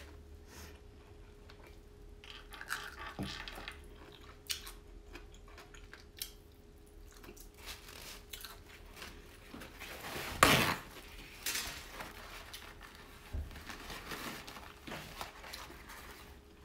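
Close-miked eating sounds: chewing and biting, with scattered clicks of utensils against dishes. The loudest is a sharp clack about two-thirds of the way through.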